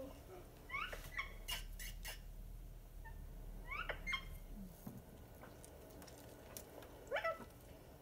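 Parakeet giving three short rising chirps, each a few seconds apart, with a few sharp clicks between the first two.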